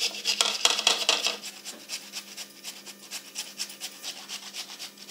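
Raw peeled potato rubbed against a flat metal hand grater, rasping in quick repeated strokes, several a second, louder in the first second and a half.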